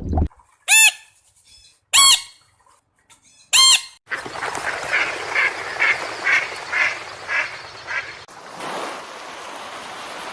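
Goose honking: three loud, separate honks in the first few seconds, then a run of about eight quicker, softer calls over a steady noisy background.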